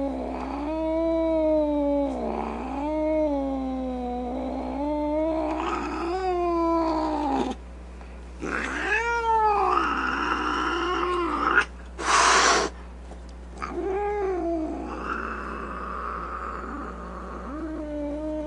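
Domestic cat caterwauling: long, wavering, drawn-out yowls that rise and fall in pitch, broken by a short pause, with a short, loud, harsh burst about twelve seconds in and a rougher, noisier call toward the end.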